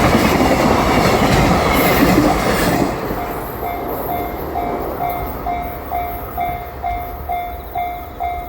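The last wagons of a freight train rumble and clack past over the level crossing, ending about three seconds in. The crossing's warning bell then rings on alone in a steady ding-ding, about two and a half dings a second.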